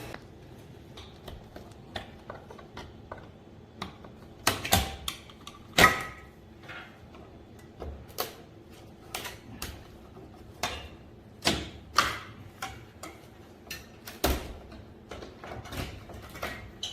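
Irregular clicks and knocks of plastic and metal parts being handled and unfastened while an air conditioner is taken apart, the loudest knock about six seconds in.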